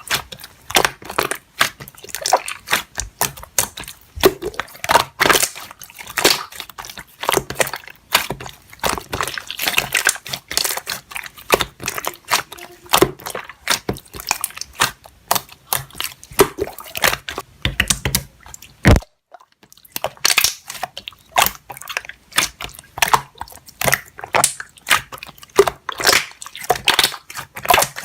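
Slime being squished and kneaded by hand, giving a dense, irregular run of wet clicks, pops and squelches, with a brief break about two-thirds of the way through.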